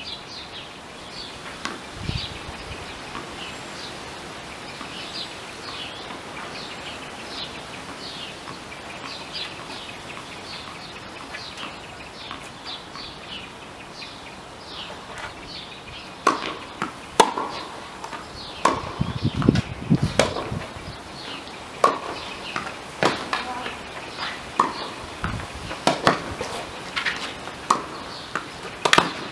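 Tennis rally on an outdoor hard court: racket strikes and ball bounces, sharp knocks about a second apart starting about halfway through. Before that, only a run of short, high chirps over a steady background.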